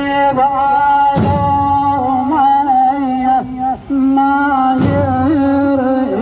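An Iraqi noha (mourning lament) chanted by a single voice through horn loudspeakers, with long held notes and wavering ornaments. Twice, about a second in and again three and a half seconds later, the mourners strike their chests together with a loud thud.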